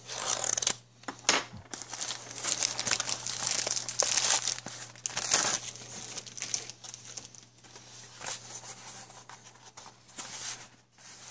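Plastic mailer bag crinkling and tearing as it is slit open with a hobby knife, loudest over the first half. This is followed by lighter rustling as a paper-wrapped package is pulled out and handled.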